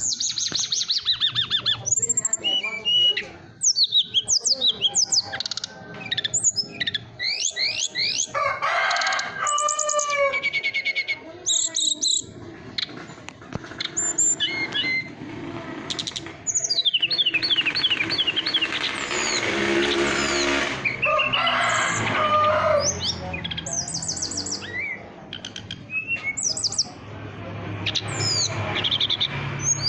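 Bamboo tledekan sounding a string of quick, high, bird-like chirps and falling trills, repeated again and again with short gaps.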